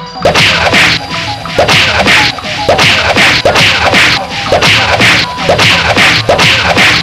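Traditional Burmese ringside percussion playing a steady rhythm: a cymbal-like crash about twice a second, over drum beats that drop in pitch.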